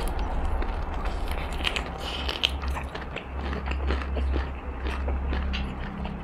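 Close-up crunchy bites and chewing of crispy breaded fried chicken, a run of short sharp crackles, close to a clip-on microphone. A steady low hum runs underneath.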